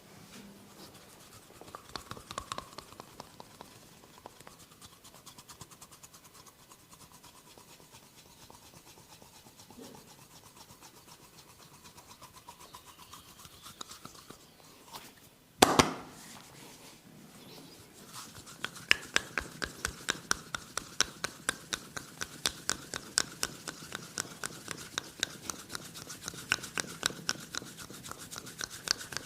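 Hands massaging head and skin: soft rubbing and scratching at first, then a single loud sharp crack about halfway through, followed by rapid rhythmic tapping strokes on the head, about three a second.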